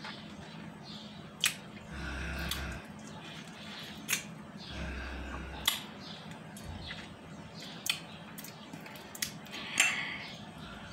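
Wet mouth sounds of someone sucking a lemon wedge dry: sharp lip smacks every second or two and two short sucking slurps, about two and five seconds in.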